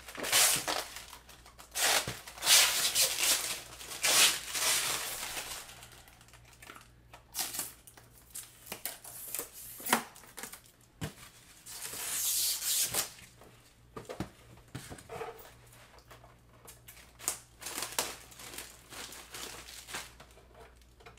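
Plastic wrapping and a plastic bag crinkling and rustling in irregular bursts as a new LCD monitor is handled in its styrofoam packing, with a few light knocks.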